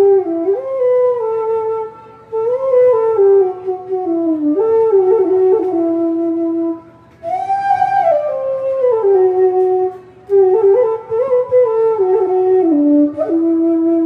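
Bamboo transverse flute (suling) playing a solo melody through a stage microphone during a sound check. It plays in phrases with sliding bends between notes, several ending on long held low notes, and a bright high note about seven seconds in.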